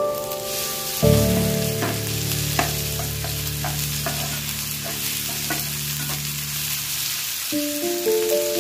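Chopped onions and ginger-garlic paste sizzling in hot oil in a frying pan, stirred with a spatula that scrapes and taps against the pan about once a second.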